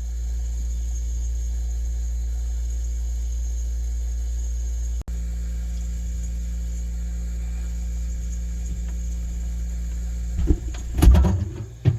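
Refrigerator motor humming steadily, heard from inside the fridge, swelling up as it starts. A few knocks and rustles near the end.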